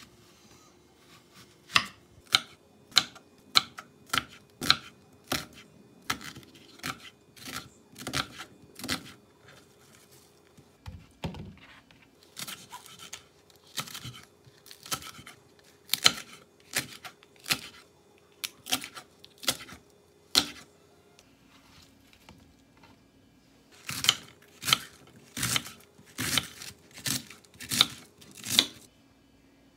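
Kitchen knife chopping vegetables on a wooden cutting board: onion, green onion and then cabbage, each cut a sharp knock against the board. The chops come about two a second, with short pauses about a third of the way in and again about three-quarters of the way in, before a last run of chops.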